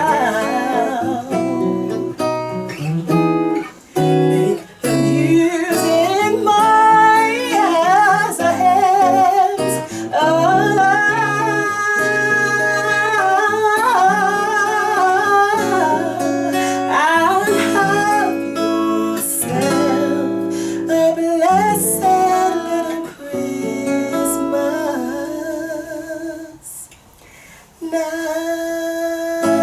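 Live gospel Christmas song: strummed acoustic guitar with singing. The sound drops away briefly about four seconds in and again near the end.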